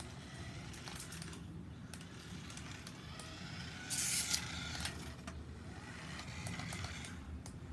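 Toy remote-control car driving: its small electric motor whines, rising and falling in pitch, over a steady low rumble. There is a short, loud hiss about four seconds in.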